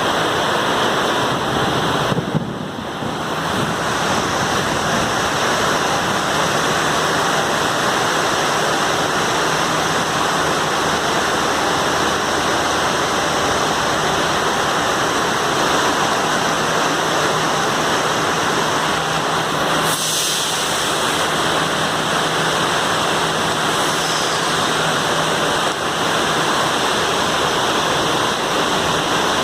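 Heavy rain pouring down in a steady, dense hiss, dipping briefly in level about two and a half seconds in.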